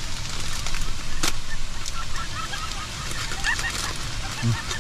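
Steady rushing water of a waterfall, with a sharp click about a second in and a scatter of short high chirps in the middle.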